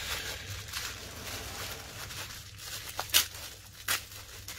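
Bubble wrap crinkling and rustling as it is unwrapped by hand, with two sharp snaps about three and four seconds in.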